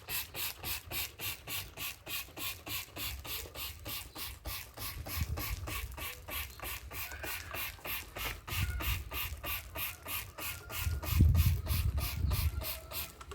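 Soapy water being worked onto a tyre bead: a quick, regular swishing, about four strokes a second, with some low handling knocks in the second half.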